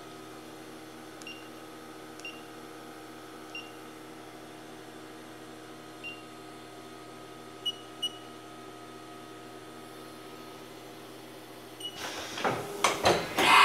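Short electronic beeps from a Haas CNC mill's control keypad, one per key press, about eight of them over a steady machine hum. Near the end the mill starts its cycle: clicks, then a rising, loud running noise.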